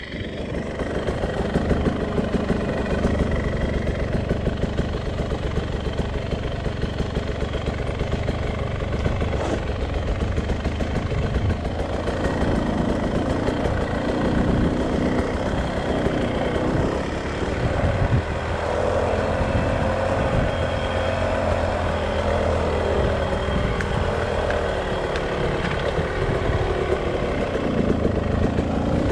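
Beta RR 300 two-stroke single-cylinder motorcycle engine running steadily, its pitch rising and falling in the second half.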